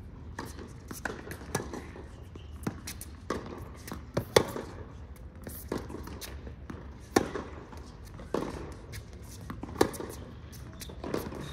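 Tennis rally: sharp racquet hits on the ball and ball bounces trading back and forth, with the loudest hits coming every two to three seconds.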